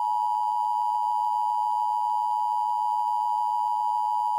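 Emergency Broadcast System attention signal: a steady, unbroken alert tone pitched just under 1 kHz, made of two close tones sounding together.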